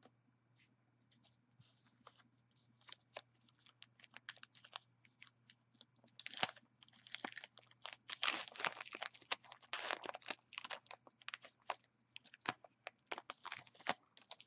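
A crimp-edged trading-card pack wrapper being handled and torn open by hand: scattered light crinkles, then bursts of crackling and tearing about six seconds in and again from about eight to eleven seconds, with a few more sharp crackles as the cards are pulled out near the end.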